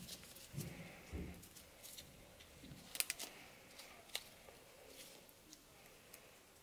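Gloved hands stretching and tucking an elastic tourniquet band around a forearm: soft rustling and handling noises, with a couple of sharp clicks about three and four seconds in.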